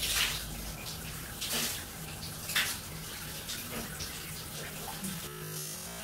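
Shower spray running and splashing on a person and the tiled stall, with a few louder splashes in the first three seconds. Background music comes in about five seconds in.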